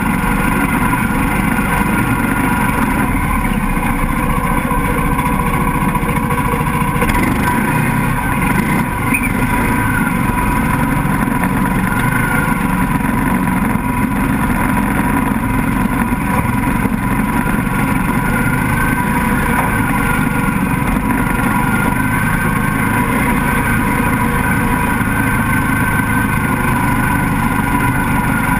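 Mini swamp buggy's engine running steadily under way through shallow marsh water, with the large tyre churning and splashing the water alongside.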